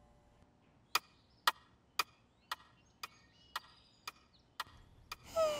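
Steady sharp ticks, about two a second, with silence between them.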